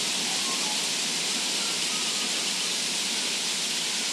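Small forest waterfall rushing steadily as water cascades over rocks.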